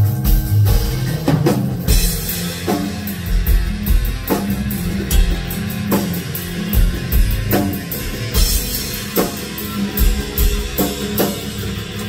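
Live instrumental progressive rock band: drum kit with rapid cymbal strokes and kick drum, under touch guitar and Chapman Stick, with strong accents about every second and a half.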